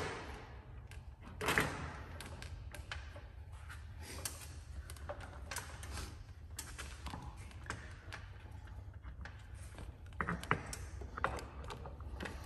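Scattered light clicks and knocks from handling a coil-spring strut assembly in a spring compressor while a top mount is seated on it, with one louder knock about a second and a half in and a few more near the end, over a low steady hum.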